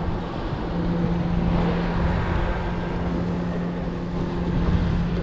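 Wind buffeting the microphone in a rumbling wash over a steady low motor-like hum aboard a small boat.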